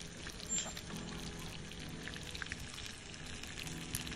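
Food sizzling in a frying pan over an open wood fire, with irregular small crackles and pops, and a faint steady low hum underneath.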